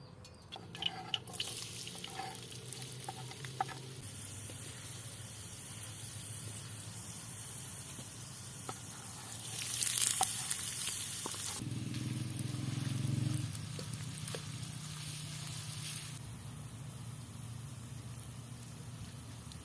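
Food sizzling as it fries in hot oil, a steady hiss that swells loudest around ten seconds in and settles back, with a few light clicks near the start.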